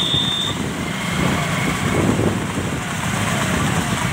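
Steady vehicle engine and road noise. A thin high-pitched tone sounds at the start and cuts off about half a second in.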